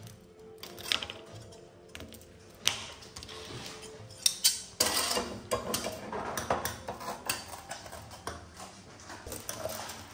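Large metal scissors snipping and scraping through a slab of warm hard-candy sugar on a steel table: repeated sharp metallic clicks and clatter, busiest in the second half, over quiet background music.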